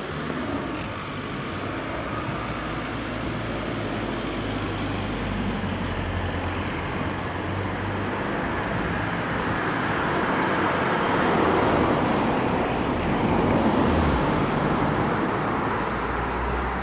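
Road vehicle noise: a car engine idling with a steady low hum, under a broad traffic rumble that swells to its loudest about two-thirds of the way through and then eases.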